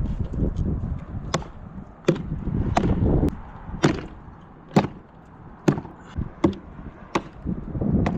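A steady series of sharp knocks or clicks, about one a second, over a low background rumble.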